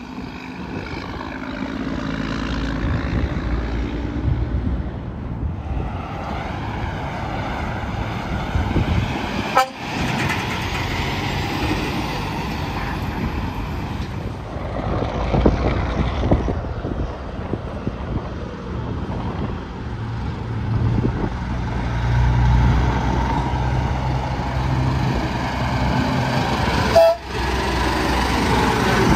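Interstate traffic: semi-trucks passing one after another, their engine and tyre noise swelling and fading. A long horn blast sounds in the first few seconds, and there are two sharp clicks, about ten seconds in and near the end.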